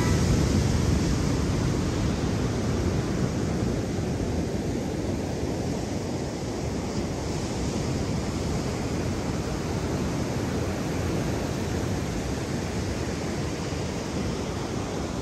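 Steady rushing noise of ocean surf and wind buffeting the microphone, heaviest in the low range, a little louder at the start and easing off slightly.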